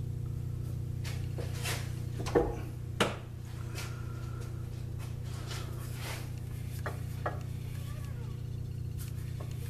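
Several clicks and clinks of metal on metal, the two loudest knocks about two and a half and three seconds in, over a steady electric hum.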